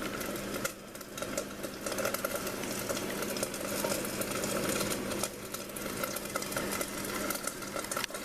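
Pieces of polenta frying in a pan of oil, sizzling and crackling steadily over a steady low hum.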